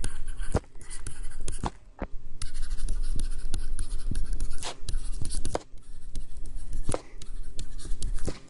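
Stylus writing on a tablet surface: scratchy strokes and sharp taps of the pen tip, with short pauses between words.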